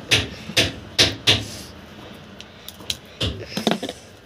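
A run of sharp knocks and clattering, four in the first second and a half and a few quicker ones near the end, as objects are handled and set down on a hard surface.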